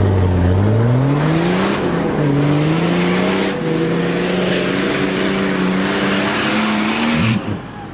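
Off-road 4x4 engine revving hard under load, its pitch climbing steadily with one brief dip about two seconds in, under a rushing noise. The revs and the noise cut off suddenly near the end.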